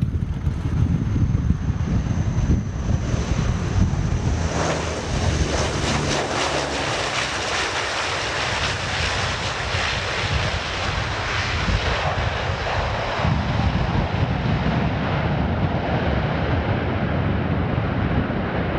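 Antonov An-12's four turboprop engines and propellers running loud and low on landing, with a faint high whine at first. About four to five seconds in the sound grows broader and hissier as the aircraft lands and rolls out down the runway.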